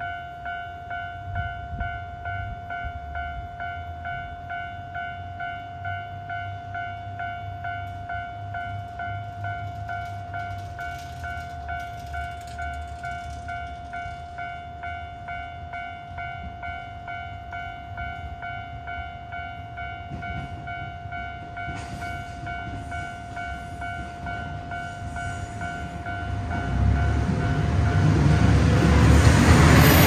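Japanese level-crossing alarm ringing its repeating electronic kan-kan bell steadily. From about four seconds before the end, a JR Shikoku 2700 series diesel limited express rumbles in louder and louder as it reaches the crossing.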